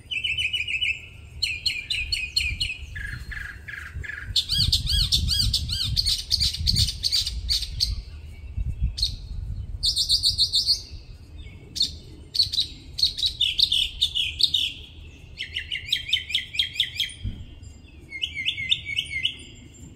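Northern mockingbird singing: a long run of varied phrases, each a quick series of repeated notes, switching to a new phrase every second or two with only short gaps.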